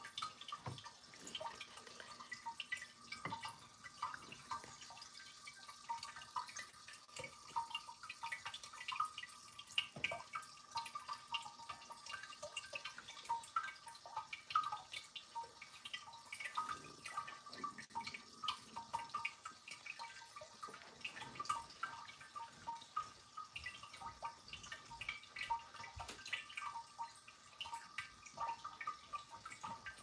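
Tabletop ceramic cascade fountain: water trickling from glazed jug to jug into the bottom basin, a steady patter of small, irregular drips and splashes.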